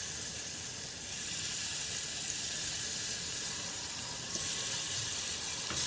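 Marinated prawns sizzling in hot oil in a frying pan as more are laid in; the sizzle grows louder about four seconds in, with a light tap near the end.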